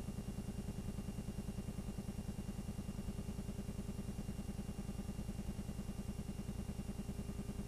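Film projector running, its mechanism clattering in a fast, even rhythm with a steady hum underneath.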